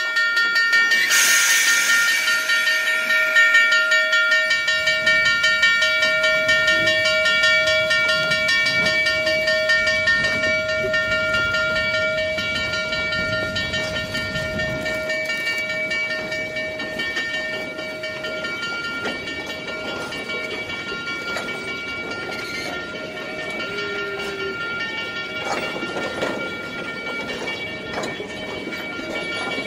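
Durango & Silverton K-36 steam locomotive No. 486 pulling its train away. There is a burst of steam hiss about a second in, then several steady high ringing tones that grow fainter as the train moves off.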